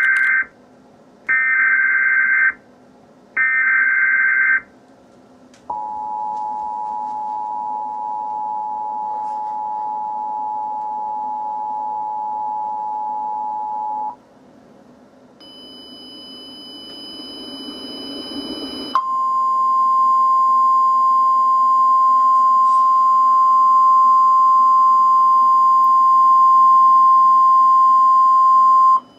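Emergency Alert System activation: the last two of three header bursts of warbling digital data, each about a second long, then the two-tone EAS attention signal held for about eight seconds. After a few seconds of rising hiss, a single steady alert tone, the NOAA Weather Radio warning alarm, sounds for about ten seconds and cuts off suddenly near the end.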